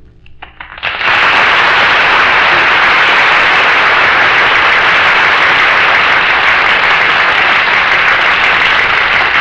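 Studio audience applauding: a few scattered claps, then about a second in, loud, dense applause that keeps going.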